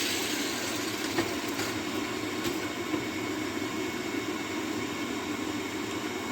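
Steady roar of a small coal blacksmith's forge with its air blower running, with a few faint ticks.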